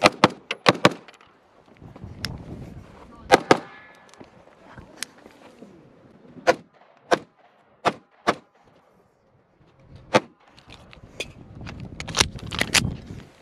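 A string of semi-automatic pistol shots, some fired in quick pairs and runs of three or four, others singly with pauses between them.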